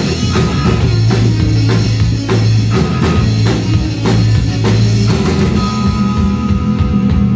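Live rock band playing an instrumental passage, the drum kit keeping a steady beat over a heavy bass line.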